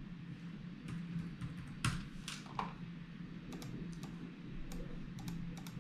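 Typing on a laptop keyboard: scattered key clicks, with a couple of louder taps about two seconds in, over a faint steady low hum.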